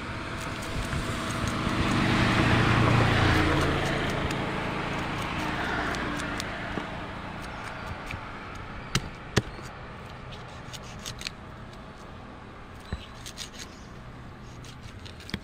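A motor vehicle driving past close by: its engine and tyre noise swells to a peak a few seconds in, then fades away. Scattered sharp clicks and knocks follow in the second half.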